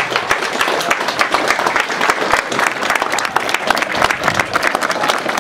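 Audience applauding: a crowd clapping steadily and densely.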